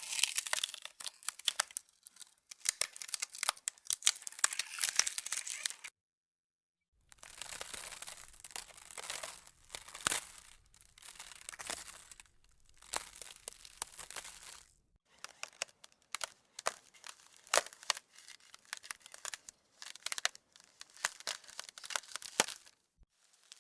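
Ice cracking: runs of crackling broken by sharp snaps, with the loudest snap about ten seconds in. The cracking stops dead for about a second some six seconds in, then resumes, with a faint low rumble under it for several seconds.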